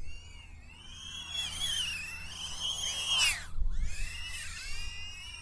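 iFlight Alpha A75 tiny whoop's motors and propellers whining in flight, the pitch rising and falling with the throttle, with a sharp upward sweep and drop about three seconds in. Wind rumbles on the microphone underneath.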